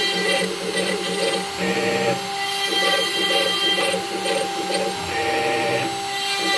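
CNC spindle running with a steady whine while its cutter mills a turret-board blank, the sound pulsing two to three times a second, with two short rougher stretches as the cut bites.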